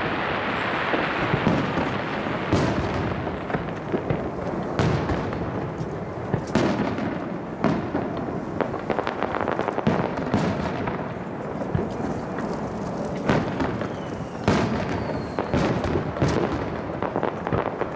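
Aerial firework shells bursting one after another, a sharp bang every second or two over a continuous crackle.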